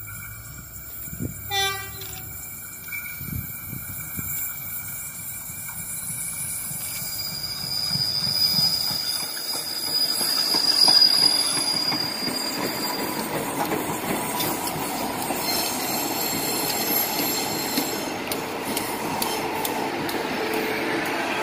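Diesel commuter multiple unit approaching and passing close by: a short horn toot about two seconds in, then the rumble of engines and wheels on rail grows loud, with high wheel squeal in the second half.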